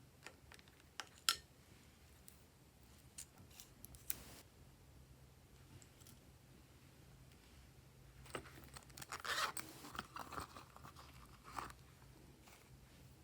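Glossy slime being handled: a few sharp sticky clicks, then about eight seconds in a denser run of crackling clicks and pops for a few seconds.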